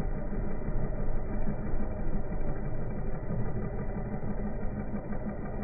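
Car engine idling steadily, sounding muffled.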